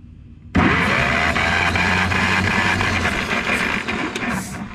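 Ferguson TO20's four-cylinder engine cranked over by its starter motor with the spark plugs out and the ignition off, for a compression test. The cranking starts abruptly about half a second in, runs about four seconds and eases off near the end, with the cylinder on the gauge showing about 120 pounds of compression.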